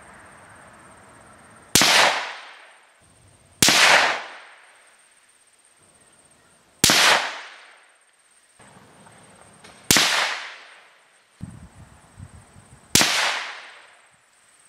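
Five shots from a Savage 93 bolt-action rifle in .17 HMR, two to three seconds apart, each a sharp crack with a short echoing tail: a five-shot group of test ammunition.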